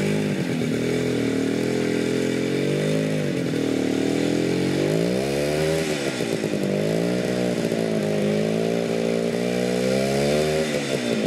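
Motorcycle engine labouring through deep mud ruts, its revs rising and falling over and over as the throttle is worked.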